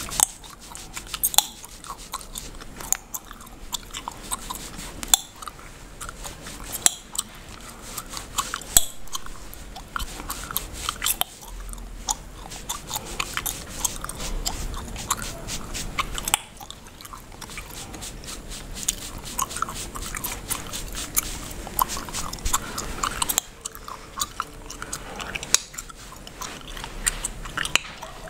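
Bubblegum being chewed and cracked close to the microphone: irregular sharp snaps and clicks, several a second, some much louder than the rest.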